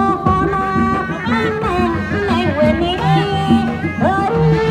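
Music: a winding, ornamented melody over a steady drum beat.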